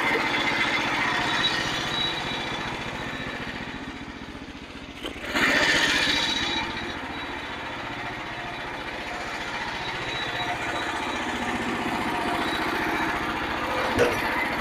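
Small gasoline engine of a Frontier OS27 portable bandsaw sawmill running steadily, with a louder, hissier stretch from about five to six and a half seconds in.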